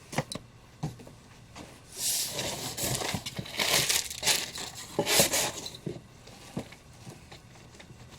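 Crinkling and rustling of comic books being handled and shuffled through, with a few light taps early on and a dense spell of crinkling for about four seconds from two seconds in.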